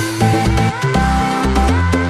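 Electronic dance music with a heavy bass line and a steady beat.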